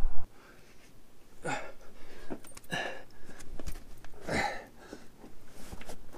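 A man breathing hard from the exertion of climbing a rock face, about three heavy exhales a second or so apart, with a few faint scuffs and clicks from his hands and shoes on the rock.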